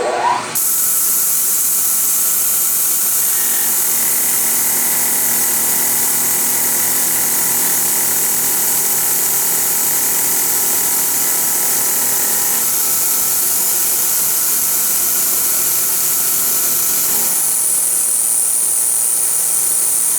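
Milling machine spinning up with a rising whine in the first half second, then running steadily with a loud hiss, machining a disc. Its tone shifts about twelve seconds in and again near the end.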